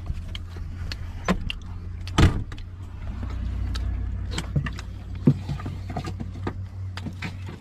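A truck's engine running with a steady low hum, heard from inside the cab, over scattered clicks and rattles. A sharp knock sounds about two seconds in.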